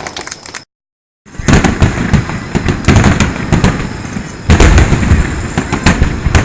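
Fireworks exploding overhead: a rapid run of loud booms with sharp crackling, after a brief gap of total silence about a second in.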